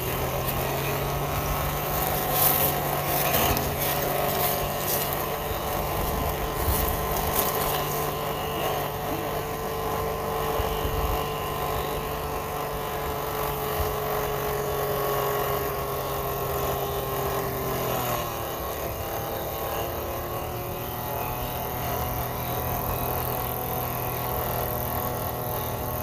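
Overheating plastic space heater, smoking with its element glowing, its fan motor running with a steady hum that slowly sinks in pitch, over sharp crackling in the first several seconds. About eighteen seconds in the hum breaks off and shifts to a different note.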